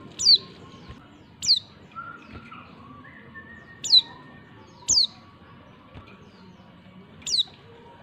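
Female white-eye (pleci) calling: five short, high chirps, each sweeping quickly down in pitch, spaced irregularly a second or more apart.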